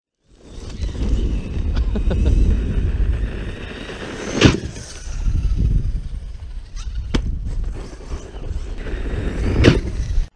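Arrma Kraton 6S RC truck running on gravel, its brushless motor making a falling whine over a low rumble of tyres and ground noise. Three sharp impacts, about four and a half seconds in, around seven seconds and near the end, as the truck hits the ramp and lands.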